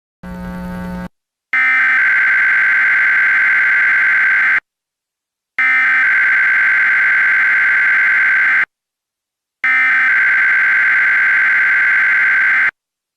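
A brief low buzz, then three identical bursts of Emergency Alert System SAME header data tones, each about three seconds long with a second's gap between: the digital data squeal that opens an EAS alert.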